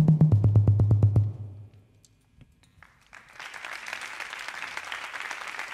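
Live rock band ending a song on a fast, even pulse over a falling bass line, stopping about a second and a half in. After a brief silence the audience applauds.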